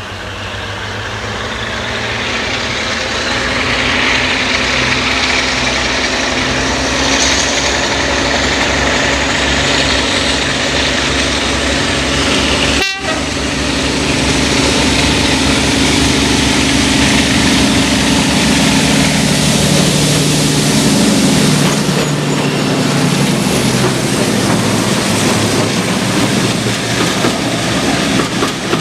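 Heritage mainline diesel locomotive working a train under power, its engine getting louder over the first few seconds and then holding. The engine note falls in pitch about two-thirds of the way through, and the sound breaks off for an instant about 13 seconds in.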